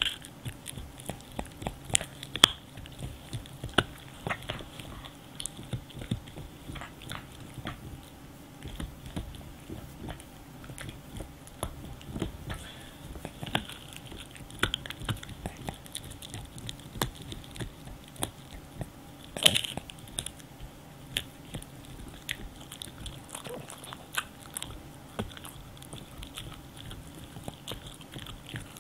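French bulldog gnawing and chewing on a hard dried cow chew stick held in its paws: irregular crunches and clicks of teeth on the stick, with a few sharper crunches, one near the start and one about two-thirds of the way through.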